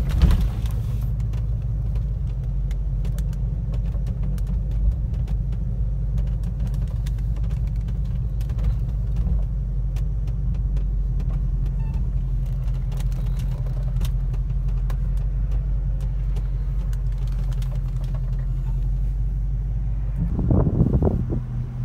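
1988 Ford McLaren Mustang's V8 engine running steadily at low revs while the car rolls slowly, heard from inside the cabin, with a short burst of louder noise near the end.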